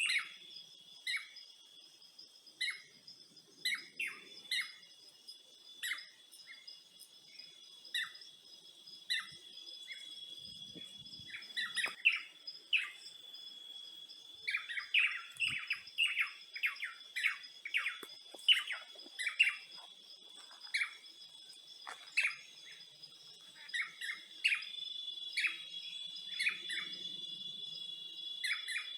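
Birds chirping in short, repeated calls, coming thicker from about halfway through, over a steady high-pitched insect drone.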